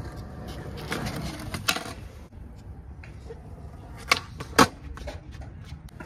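Skateboard wheels rolling over concrete with a steady rumble, then a sharp tail pop about four seconds in, followed half a second later by a louder slap as the board comes back down on the concrete during a big spin attempt.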